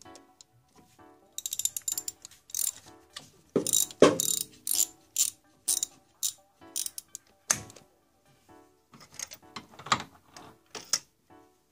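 Socket ratchet clicking in runs of quick strokes as a spark plug is worked loose from the engine's cylinder head, with light metal clinks of the socket and extension.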